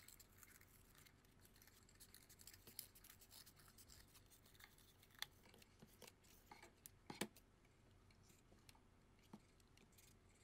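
Faint snipping of scissors cutting through thin cardboard: a run of small clicks and crunches, with a couple of louder sharp ticks about five and seven seconds in.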